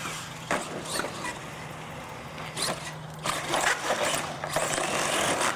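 Radio-controlled monster truck landing hard and tumbling on concrete: sharp knocks of the chassis and tires striking the pavement about half a second and one second in, and again a little later. A longer rush of scraping and clattering follows in the second half as it rolls over and over.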